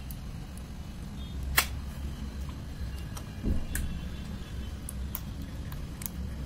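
Pink Fevicol glue slime being stretched and pressed by hand, giving scattered sharp sticky clicks and pops, the loudest about one and a half seconds in, with a dull thump about halfway through. A steady low hum runs underneath.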